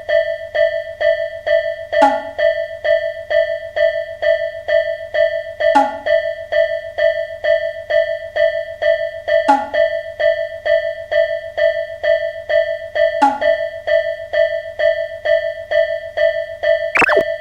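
Electronic railway level-crossing alarm ringing, a single steady pitched ding repeating at an even rate of about two to three a second. A short falling sweep cuts in about every four seconds, and a louder brief sound comes just before the end.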